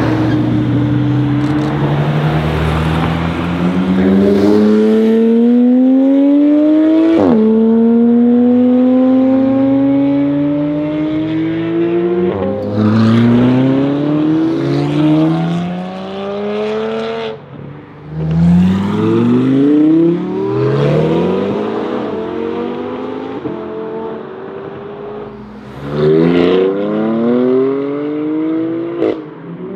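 Sports car engines accelerating hard, one car after another. Each run climbs in pitch through a gear, drops sharply at the upshift and climbs again.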